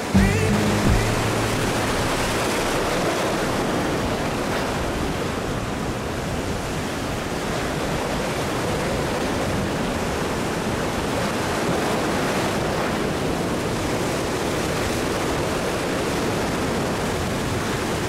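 Steady rush of ocean surf breaking and washing against a rock jetty. A few notes of music die out about a second in.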